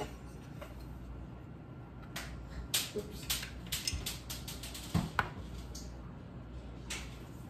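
Scattered light clicks and taps from handling a small frying pan and its separate handle while the handle is being fitted on, with a screwdriver picked up toward the end.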